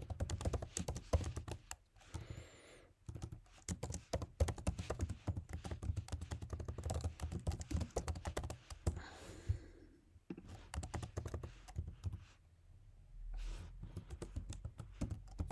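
Typing on a computer keyboard: rapid key clicks in runs, broken by a couple of short pauses.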